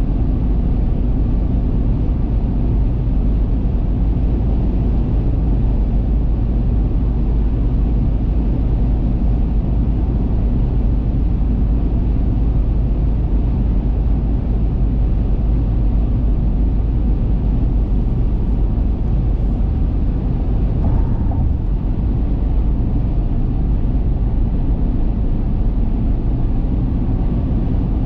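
A car driving at highway speed: a steady low rumble of tyres on the road and the running engine, with no change in pace.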